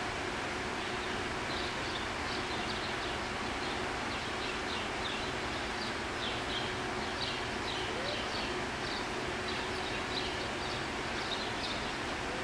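Steady rush of a zoo exhibit's waterfall, with small birds chirping repeatedly over it.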